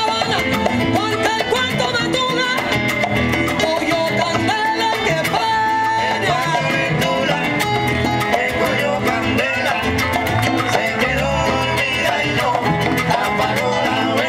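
Live salsa band playing: a gliding melody line over steady bass and quick, dense percussion.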